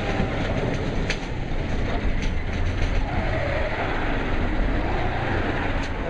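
Steady low engine rumble from heavy machinery at close range, with a few brief sharp clicks.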